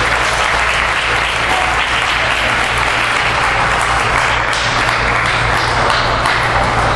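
Spectators applauding, a steady dense clapping with a low hum underneath.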